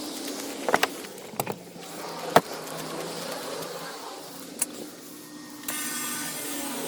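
A winch hauling a vehicle in: a low steady motor hum broken by several sharp clicks and clunks. Near the end a different, steady hissing machine noise takes over.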